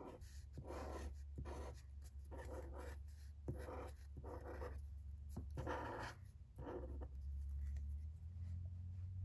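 Marker drawn across paper in about ten short strokes, roughly one every 0.7 seconds, stopping about seven seconds in, over a steady low hum.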